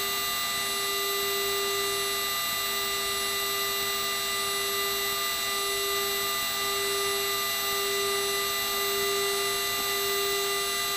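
Steady electrical hum and whine on the Sabreliner's cockpit intercom audio, a strong low hum with several fainter steady tones above it, and a faint high rising chirp repeating about once a second.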